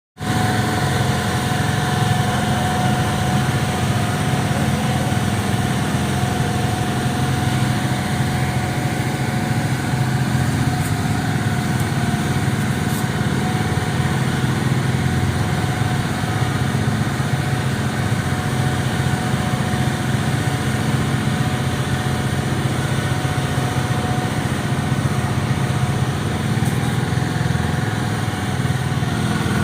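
Small engine of a motorised disinfectant sprayer running steadily at a constant speed, with a steady whine over a rough rumble.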